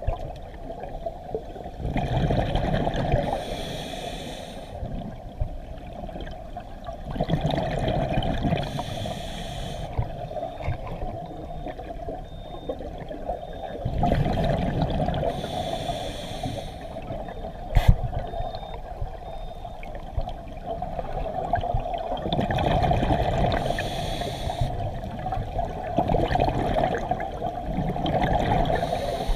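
Scuba regulator breathing heard underwater: a steady rumble with a loud rush of exhaled bubbles every few seconds, and one sharp click about two-thirds of the way through.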